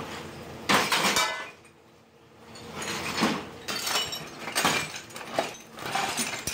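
Scrap metal parts, old brake shoes among them, tipped from a sack into a steel drum. A loud clattering crash comes about a second in, then a short pause, then a run of ringing clanks and clinks as the rest of the load slides in.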